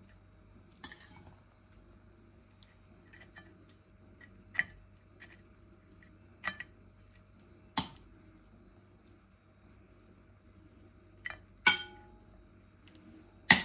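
Teaspoon clinking against a dish and plate as a tomato and garlic mixture is spooned onto toast: scattered single clinks a second or more apart, the loudest two near the end.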